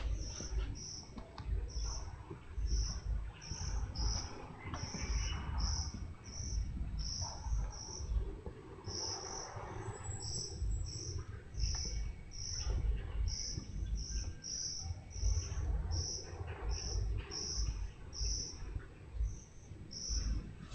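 A cricket chirping, short high chirps at one pitch, a little under two a second, over an irregular low rumble from the microphone being moved about.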